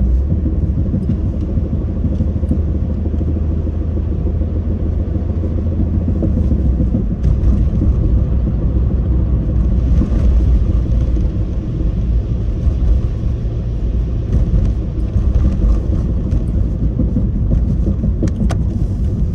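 Cabin noise of a Suzuki Swift Sport ZC31S on the move: steady low engine and road rumble, with a few faint knocks. The knocks are the front-end knocking the owner is chasing, which he first took for a drivetrain fault and then came to suspect was a worn hub bearing.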